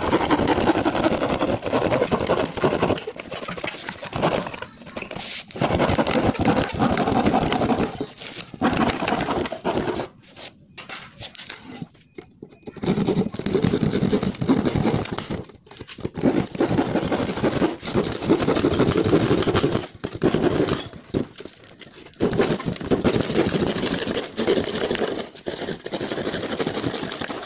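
Hand saw cutting through a thin plywood sheet: rapid back-and-forth strokes in runs of a few seconds, with short pauses between the runs.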